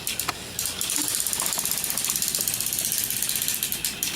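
Small battery-powered toy train engines running, their motors and plastic gears whirring with rapid ratchet-like clicking as two engines push against each other. The clicking drops briefly just after the start, then runs on steadily.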